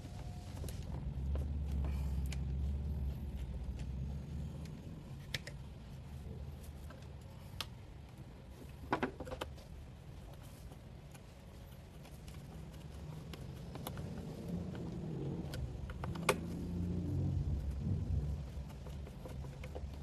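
Scattered small clicks and taps of a screwdriver working terminal screws and wires being handled inside an opened instant water heater, with a quick cluster of clicks about nine seconds in. Under it is a low rumble that swells near the start and again near the end.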